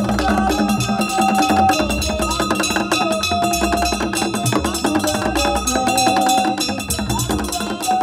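Itsekiri traditional drum ensemble: several wooden drums struck with sticks and hands in a fast, dense rhythm with deep thuds, and held pitched notes above the beat.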